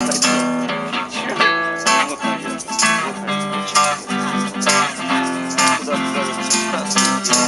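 Acoustic guitar strummed in a steady rhythm: the instrumental intro of a live acoustic rock song, before the vocals come in.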